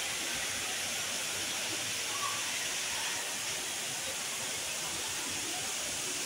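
Steady, even rushing hiss of background noise with no distinct events.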